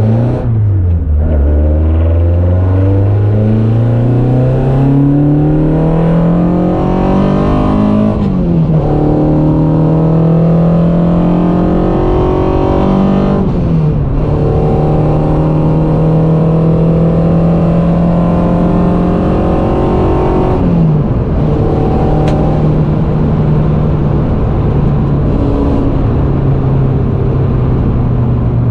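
Peugeot 106 Quicksilver's four-cylinder engine heard from inside the cabin under hard acceleration. The engine note climbs through each gear and drops sharply at upshifts about a second in and at about eight, fourteen and twenty-one seconds, then runs at a steadier pitch in top gears at speed. Road and wind noise run underneath.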